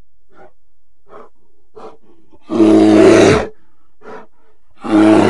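A large animal roaring: a few short breathy sounds, then a loud deep roar about a second long, with a second roar starting near the end.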